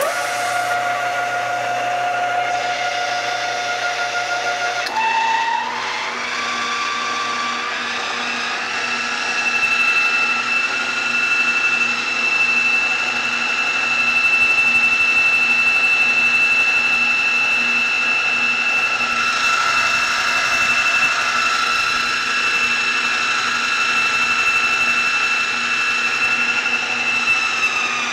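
Vectrax 20-inch variable-speed drill press starting up and running with a steady whine. About five seconds in, the whine steps up and climbs for a few seconds as the spindle speed is raised, then holds at the higher pitch, and it begins to drop near the end.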